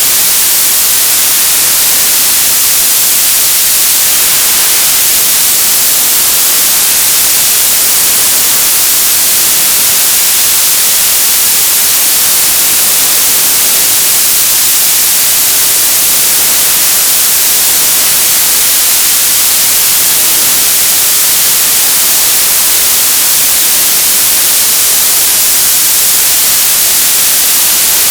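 Television static: a loud, steady hiss, brightest in the treble, with no change.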